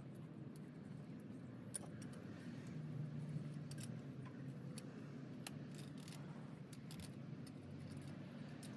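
Scattered sharp metallic clicks and ticks of pliers gripping and turning brass pipe fittings and a brass ball shut-off valve as they are tightened, over a steady low hum in the background.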